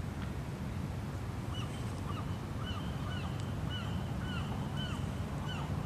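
A bird calling over and over, short arched notes about two a second, starting about a second and a half in. Under it, a steady low rumble.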